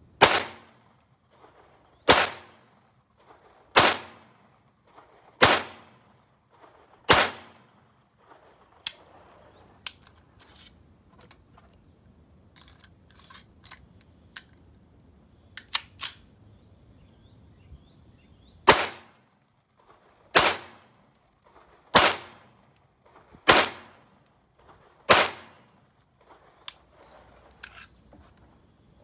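Colt Match Target .22 LR semi-automatic pistol firing two strings of five shots, each shot about one and a half seconds after the last. Between the strings comes a pause of about ten seconds with only a few fainter sharp clicks.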